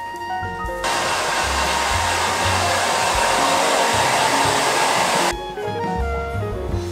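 Handheld hair dryer blowing on hair. It starts abruptly about a second in and cuts off suddenly about four and a half seconds later, with background music before and after it.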